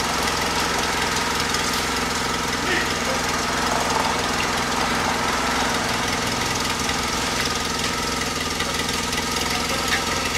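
An engine idling steadily at an even speed.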